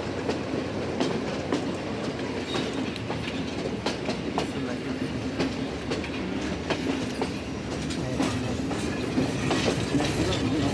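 Passenger train running along the track: a steady rumble of the carriage with the wheels clacking irregularly over rail joints.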